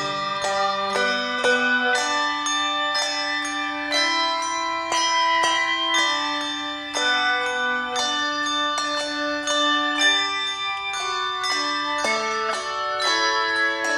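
Handbell choir playing: brass handbells rung in chords, a steady succession of notes that ring on over one another.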